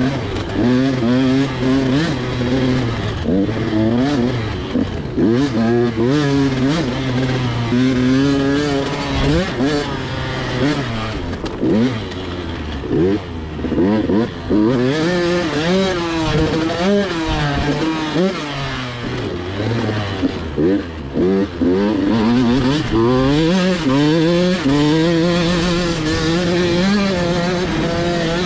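Dirt bike engine heard from on board the bike, revving up and falling back over and over as the rider accelerates and shifts, with brief dips in loudness between pulls.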